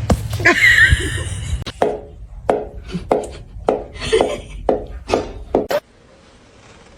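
A quick run of short, sharp knocks or taps, irregular at about two or three a second, after a louder, noisy opening. Near the end it cuts off suddenly to quiet room tone with a faint steady hum.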